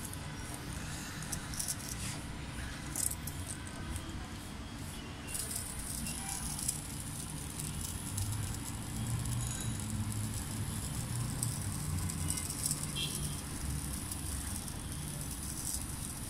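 Tiny solar toy car's micro motor and plastic gear train whirring and rattling, its wheels spinning freely while it is held in sunlight on a fingertip; a steady high whir comes in about five seconds in.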